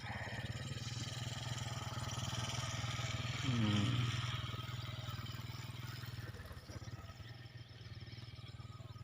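A motorcycle engine running, growing louder to a peak about three and a half seconds in and then fading as it passes.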